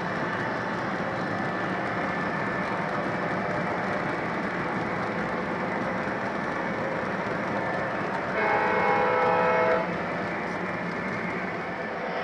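Cars of an O-gauge model freight train rolling past on three-rail track, a steady rumble of wheels on the rails. About eight seconds in, the MTH ES44AC locomotive's onboard sound system gives one diesel horn blast lasting about a second and a half.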